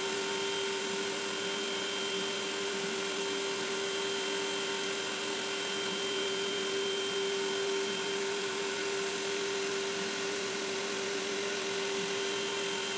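Makera Z1 desktop CNC spindle running with a steady whine while a 90-degree chamfer bit cuts the edges of a wooden workpiece held in the rotary fourth axis, with a faint hiss of cutting.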